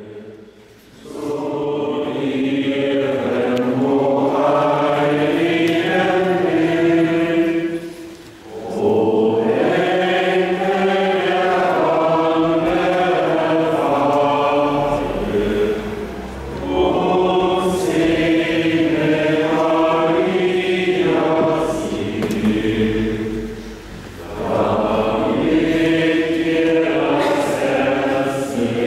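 A church congregation singing a hymn together, in four long phrases with short breaks between them.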